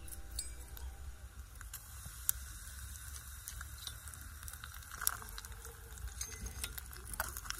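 Oil sizzling faintly in a miniature clay pot as a tempering of seeds, dry red chilli, curry leaves and onion fries, with scattered small crackles and pops.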